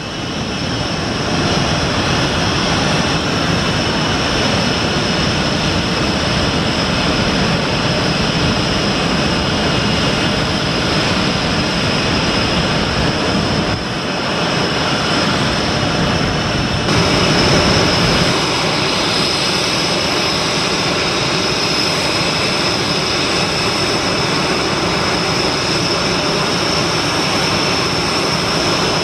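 Panavia Tornado's twin Turbo-Union RB199 turbofan engines running on the ground: a loud, steady jet noise with a constant high-pitched turbine whine over it.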